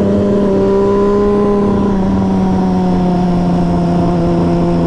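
Triumph Street Triple 765RS inline three-cylinder engine with a Scorpion Serket carbon exhaust, running at steady revs under way; the pitch eases slightly lower about two seconds in.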